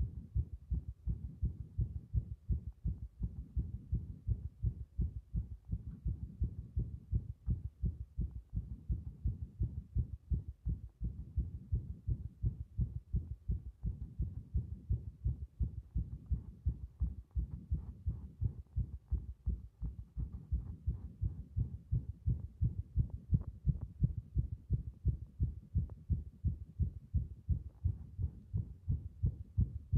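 Human heartbeat picked up through a stethoscope chest piece with a microphone, on a chest being pressed with a hand-held can: a continuous run of low lub-dub thuds, several a second.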